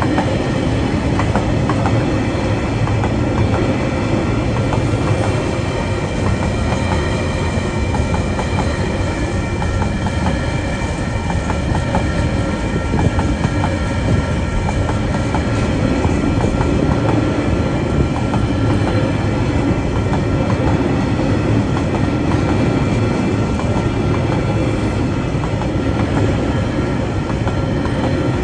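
TasRail freight train rolling steadily past a level crossing: a continuous rumble of wagon wheels on the rails, with clickety-clack over the rail joints.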